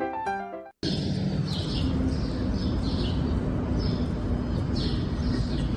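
Piano music that cuts off abruptly under a second in. Then a series of short, high, falling chirps, repeating about twice a second, over a steady rushing outdoor background noise.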